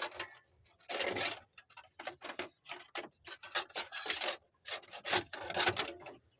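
Irregular scraping and rubbing as a wire is pushed and worked through a tight passage in the truck, in a series of uneven strokes.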